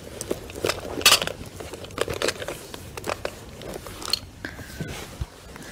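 Scattered clicks and rustling of objects being handled close to a phone microphone, as someone rummages for something.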